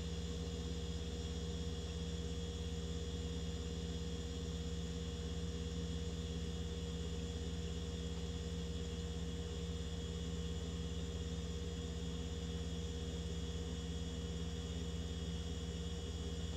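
KitchenAid refrigerator's compressor and fan running steadily, a constant hum with several steady tones. The fridge runs without shutting off, which the owner suspects is a control board fault.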